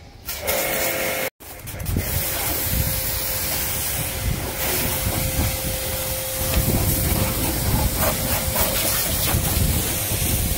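Agaro electric high-pressure washer spraying a jet onto a scooter: a loud, steady hiss of spray with a steady tone running under it, cut off for a moment about a second in.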